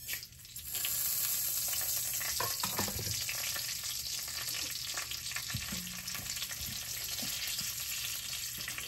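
Fenugreek, mustard, fennel and black cumin seeds sizzling in hot oil as they are tempered: a steady hiss that starts about a second in, with a few light knocks.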